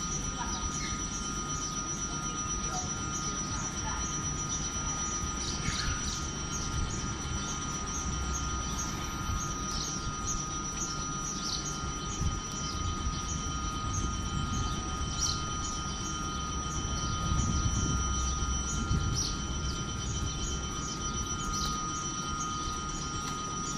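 Railway platform ambience beside a standing electric train: a steady low rumble under several steady high-pitched tones, with insects chirping in a fast repeating pattern.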